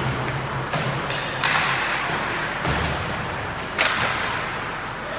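Ice hockey game play in an indoor rink: a steady wash of skating and arena noise, broken by two sharp cracks, about a second and a half in and near four seconds.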